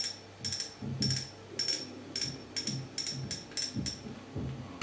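Front drag knob of a Shimano Nexave spinning reel clicking as it is turned, about a dozen short, sharp clicks at uneven spacing, some in quick pairs. The clicks come in coarse, widely spaced steps.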